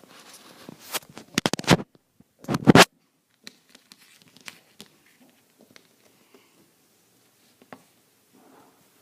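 Scratching and rustling handling noises, loudest in a burst about three seconds in, then only a few faint ticks.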